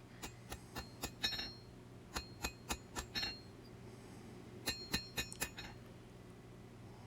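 Hand hammer striking hot steel on an anvil while drawing down the bevels of a double-edged knife blade. Each blow rings, in three quick runs of about five strikes with short pauses between. A steady low hum runs underneath.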